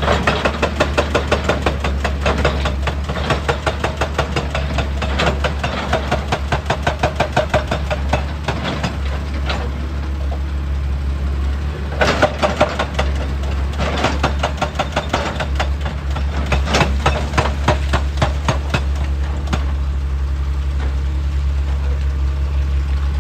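Hydraulic rock breaker on an excavator hammering rock in rapid, evenly spaced blows, in several long bursts with short pauses, over the steady drone of the diesel engine; the hammering stops for the last few seconds, leaving the engine running.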